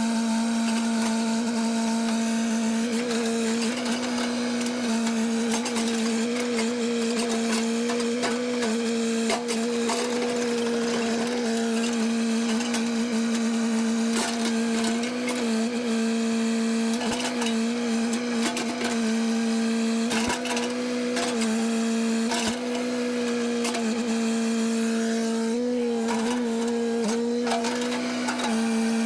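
Two-stroke chainsaw running at full throttle, holding a steady high pitch that dips slightly now and then.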